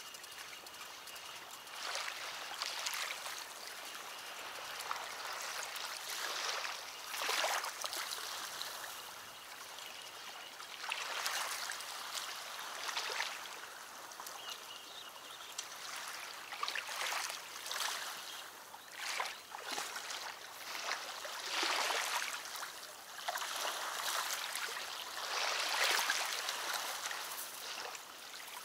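River water lapping and splashing at the shoreline, a steady wash of noise that swells every few seconds.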